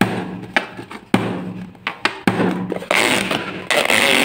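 An inflated latex modelling balloon squeaking and rubbing under a hand. There are several squeaks, each starting sharply and then holding a low tone, with a rougher rubbing sound near the end.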